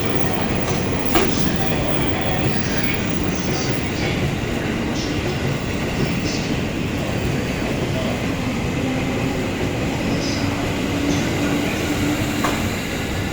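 JR 651-series electric multiple unit pulling out of the station, with steady running noise from wheels and motors. A few sharp clicks are heard as the wheels cross rail joints, the clearest about a second in and near the end.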